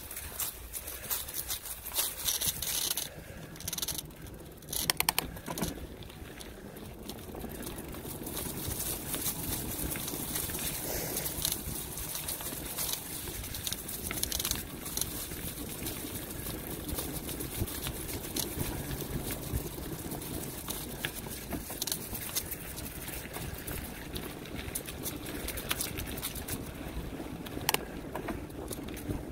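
A bicycle riding over leaf-strewn ground and pavement: a steady rushing noise of tyres and movement, with many sharp clicks and rattles over the first few seconds and scattered ones after.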